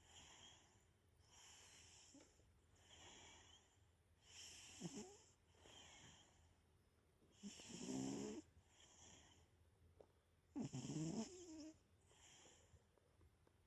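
Domestic cat snoring in its sleep: faint, regular breaths about once every second or so, with a few louder, buzzing snores in the second half. The owner wonders whether the snoring means the cat has a bad nose.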